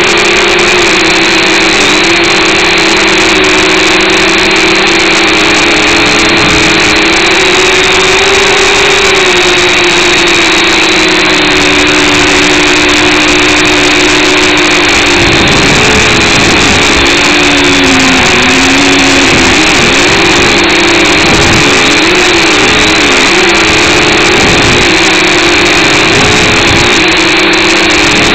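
Eachine H8C mini quadcopter's four small motors and propellers whirring in flight, heard close up through its onboard camera. It is a steady buzz whose pitch wobbles as the throttle changes, and it swings up and down more quickly in the second half.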